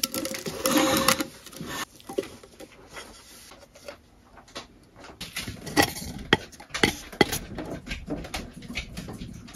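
Wood stain being applied by hand to a charred wooden box. A rubbing stroke lasts about a second and a half near the start, followed by scattered light clicks and knocks of handling.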